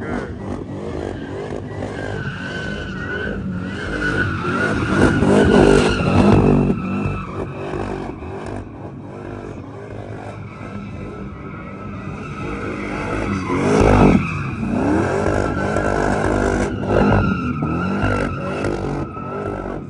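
Car tires squealing in a burnout: a steady screech that sinks slowly in pitch, over the engine revving. The engine swells loudest around six and fourteen seconds in.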